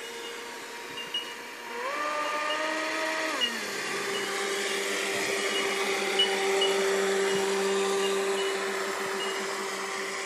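Radio-controlled speedboat's motor whining as the boat runs across the water. The pitch steps up about two seconds in and drops again a second and a half later, then holds a steady lower drone that is loudest as the boat passes close.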